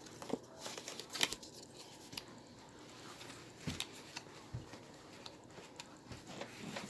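Cardstock and paper being handled: folded flaps of a paper box opened and turned, giving scattered soft rustles and light taps.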